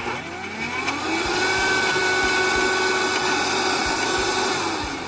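Countertop blender motor spinning up with a rising whine, running steadily as it blends frozen banana pieces into a thick ice cream mixture, then winding down near the end.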